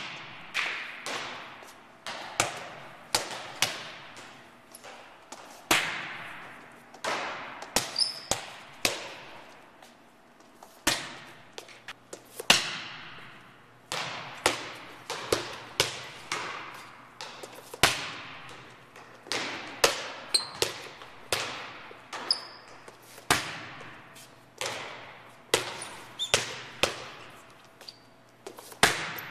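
Volleyballs being served in a large gym: repeated sharp smacks of a hand on the ball and balls landing and bouncing on the court floor, each hit echoing in the hall.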